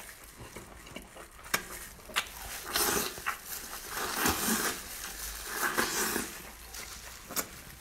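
Close-up eating sounds: wet chewing and smacking of a saucy dish, with a few sharp clicks scattered through.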